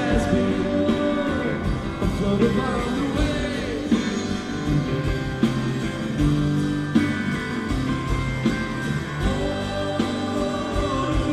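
Live rock band playing: electric guitar over bass guitar and drums, amplified through an arena PA.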